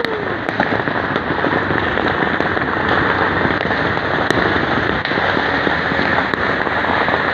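Many fireworks and firecrackers going off at once across a city, a dense unbroken crackle with a few sharper single pops standing out.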